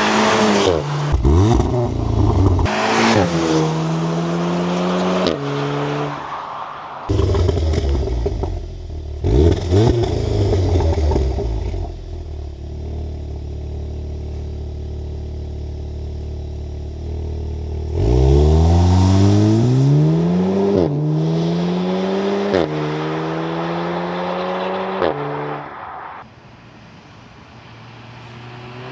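Audi TTS Mk3's turbocharged 2.0-litre four-cylinder accelerating hard through several quick upshifts of its S tronic dual-clutch gearbox. The engine note climbs, drops at each shift and climbs again, with a steadier stretch of running in the middle.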